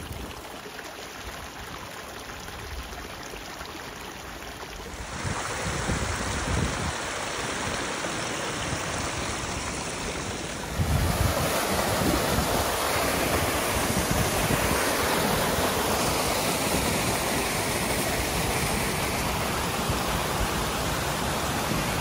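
Creek water running over rocks: a small trickle at first, then a louder rush of water pouring down a small cascade. The sound steps up abruptly about five seconds in and again about eleven seconds in.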